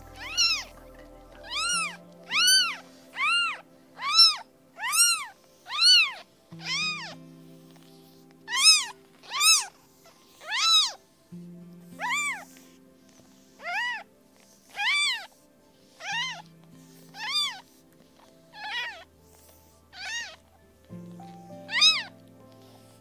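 A kitten mewing over and over, about one high mew a second, each one rising and falling in pitch, with a short break about a third of the way through. Soft background music with slow held notes plays underneath.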